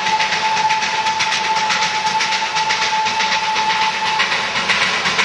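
Darjeeling Himalayan Railway B-class steam locomotive and its carriages passing close by, with a fast rhythmic clatter and a steady high tone that stops about four seconds in.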